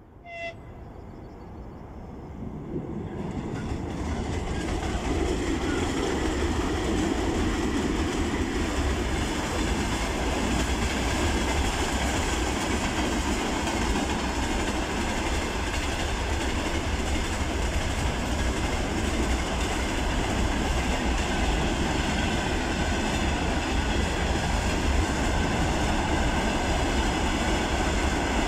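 Freight train wagons rolling past close by, a steady rumble of wheels on the rails that builds over the first few seconds and then holds steady. A brief high tone sounds just at the start.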